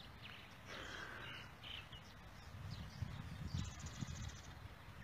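Quiet outdoor ambience: faint, scattered bird chirps and a short buzzy trill about three and a half seconds in, over a low rumble.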